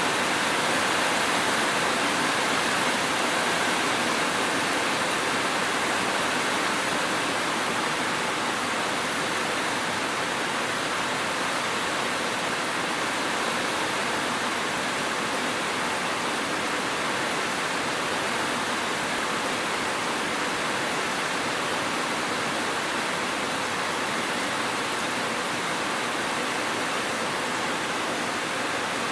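Steady, even rain with no thunder.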